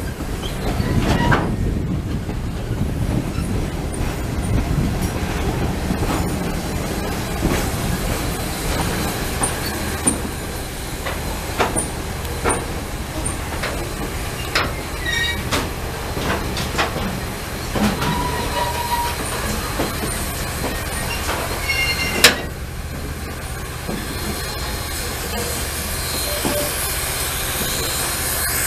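A train rolling slowly past, with a steady low rumble and scattered clanks and knocks from the wheels and couplers. A single sharp bang about 22 seconds in is the loudest sound.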